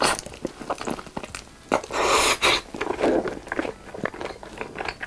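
Close-miked wet biting and chewing of sauce-coated fried chicken, as the meat is pulled off the bone with the lips: quick sticky clicks and crackles, with a louder smacking burst about two seconds in.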